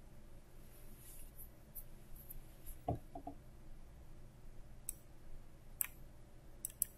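Faint computer mouse clicks, a few scattered through, with one duller knock about three seconds in, over quiet room tone.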